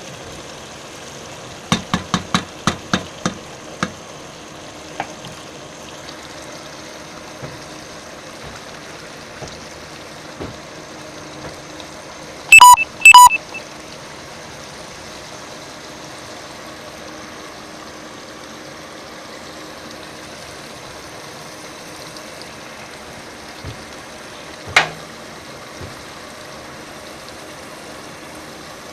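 Kitchen sounds over a steady hiss: a quick run of about seven light knocks, then two loud electronic beeps half a second apart, and later a single sharp knock.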